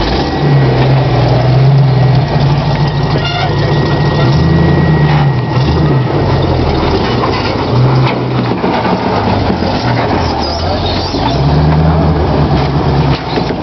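Lifted Ford Bronco's engine running under load while rock crawling, the revs rising and falling in several surges.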